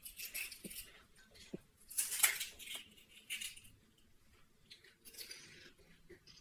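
Golgappa (pani puri) being eaten fast: crisp hollow puri shells cracked open and crunched, with wet chewing and slurping of the spiced water, in irregular bursts.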